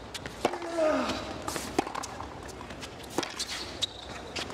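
Tennis rally on a hard court: sharp pops of racket strikes and ball bounces every second or so, with a player's short falling grunt on a stroke about half a second in.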